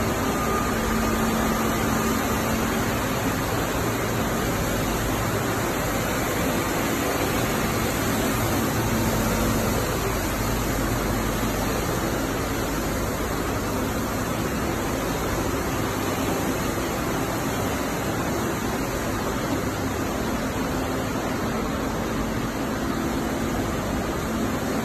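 Machinery of a PET bottle washing and drying line running steadily: a dense rushing noise from the motors, dryer and screw conveyor, with a low motor hum.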